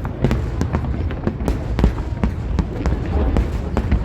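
Fireworks going off in a rapid, irregular string of sharp bangs and crackles, several a second, over a steady low rumble.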